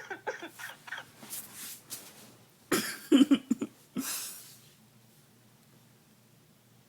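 A pet bird making short raspy, cough-like calls, a hiss and one louder harsh call in the middle, then falling quiet for the last couple of seconds.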